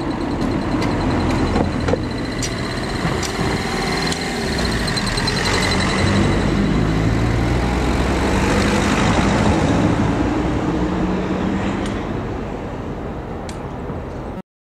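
Cars driving over a level crossing one after another, engines running and tyres rumbling as they pass close by, loudest about six and nine seconds in. A few sharp knocks come as tyres cross the rails.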